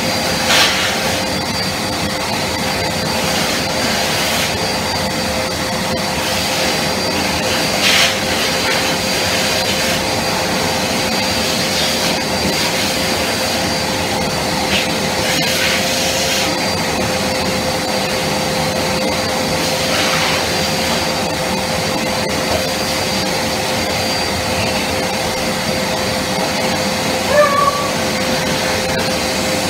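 Vacuum cleaner motor running steadily with a constant whine, with a few brief knocks of the nozzle or hose along the way.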